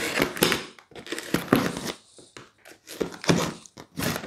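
A knife slitting packing tape along the top of a cardboard box: a run of short, irregular scraping and tearing strokes as the blade cuts through tape and cardboard.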